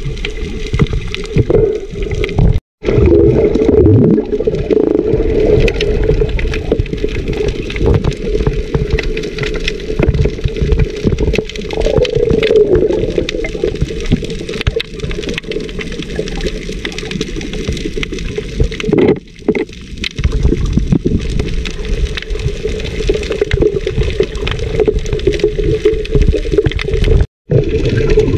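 Muffled water rushing and gurgling, picked up by a camera underwater. It is heavy in the low end and drops out for a moment about three seconds in and again near the end.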